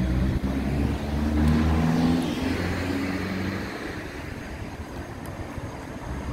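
A car drives past on the street with its engine rising in pitch as it accelerates. It is loudest about two seconds in, then fades into the street's traffic noise.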